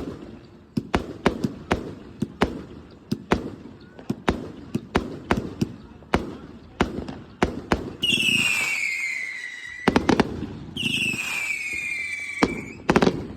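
Backyard consumer fireworks: a fast run of sharp bangs, about two or three a second, then two whistling shells that each fall in pitch over about two seconds, with quick clusters of cracks between and after them.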